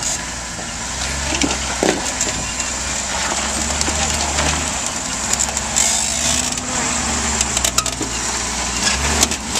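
Jeep crawling over boulders at low engine revs: a steady low engine hum under repeated crunching, cracking and scraping as the tyres and underside grind over rock and gravel.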